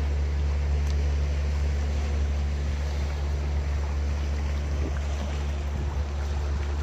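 Low, steady drone of a passing boat's engine, with waves washing against the breakwater rocks.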